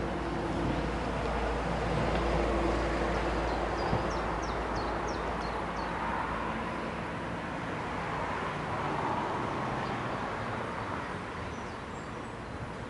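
Steady low mechanical rumble and hiss, with a bird chirping a quick series of short high notes about three to five seconds in.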